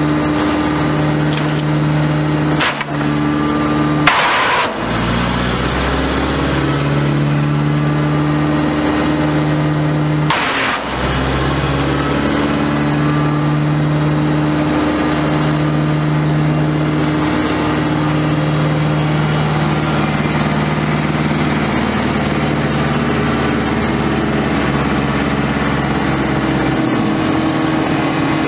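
Woodchuck WC12A chipper's Deutz four-cylinder diesel engine running steadily. Two short bursts of noise come about four and ten seconds in, each followed by a shift in the engine's pitch, and the deep low rumble drops out near the end.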